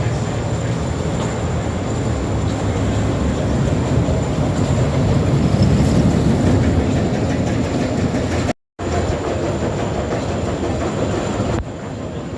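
Roller coaster train running along its track: a loud, steady rumble of wheels on rail. It cuts out for a moment about two-thirds of the way through and comes back slightly quieter near the end.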